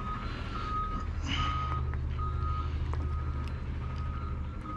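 Reversing alarm beeping steadily, about one beep every 0.8 seconds, over a low engine rumble.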